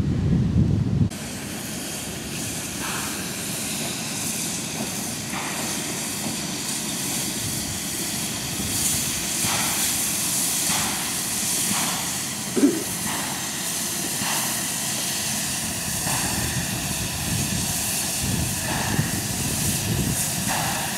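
NZR AB-class steam locomotive working slowly along the line: soft exhaust chuffs over a steady hiss of steam, the beats coming closer together as it gathers speed, with one brief louder sound about twelve seconds in. Wind buffets the microphone for the first second.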